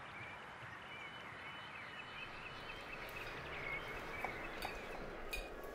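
Faint birds chirping in short, scattered calls over a steady background hiss of outdoor ambience, with a few light ticks near the end.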